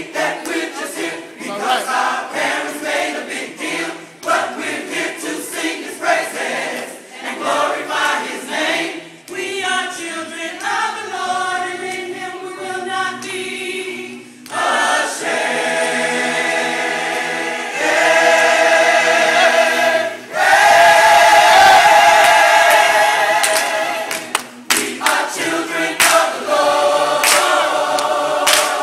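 Gospel choir singing in harmony, the voices moving in short rhythmic phrases and then swelling into long held chords, loudest a little past the middle, before falling back into shorter phrases near the end.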